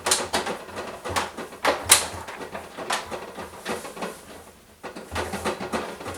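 Plastic brine tubing and fittings being handled at a water-softener brine tank, with irregular knocks and short scrapes as the tubing is fed through the hole in the tank; the loudest knock comes about two seconds in.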